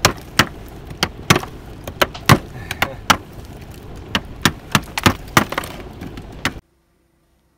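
A wood chisel struck with a wooden mallet, chipping very hard iceberg ice into cubes: sharp strikes, about two a second, that cut off suddenly near the end.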